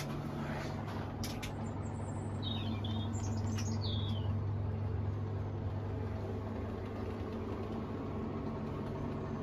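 Steady hum of a glass-door drinks fridge running. A few short bird chirps come about two to four seconds in.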